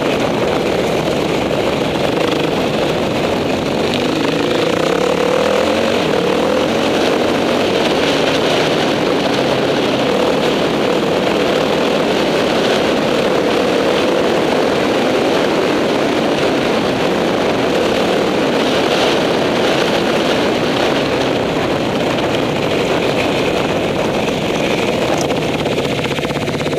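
Enduro motorcycle engine running under way on a dirt track, heard close from the bike itself, its pitch climbing a few seconds in and then holding steady with the throttle.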